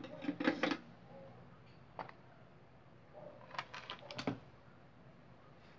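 Light clicks and taps from small parts and tools being handled at a workbench. There is a cluster of clicks about half a second in, a single tap at two seconds, and another cluster of clicks and a knock around four seconds.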